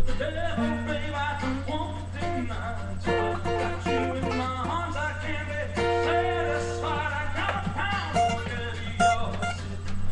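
Acoustic guitar strummed and picked, a run of chords and single notes, with a steady low hum underneath.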